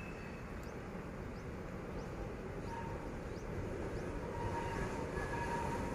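D12E diesel locomotive pulling a D11H, approaching from out of sight: a faint low rumble that slowly grows louder, with faint steady tones coming in from about halfway.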